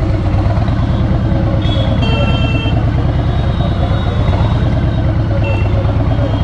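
Cruiser motorcycle's engine idling steadily, not revved. A couple of thin high beeps from street traffic sound faintly over it, about two seconds in and again near the end.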